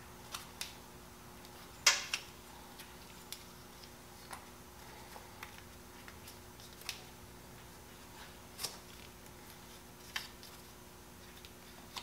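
Scattered soft clicks and crinkles of a roll of PTFE (Teflon) thread tape being pulled and wrapped around a fitting's threads, the loudest about two seconds in.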